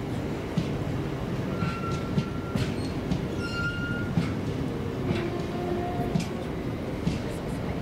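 Freight train rolling by, its wheels clicking irregularly over rail joints, with brief high squeals from the wheels on the rail about two and three and a half seconds in and a lower squeal around six seconds.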